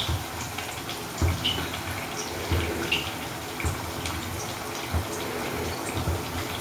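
Battered bread chops deep-frying in hot oil in a kadai: a steady sizzle with small scattered pops.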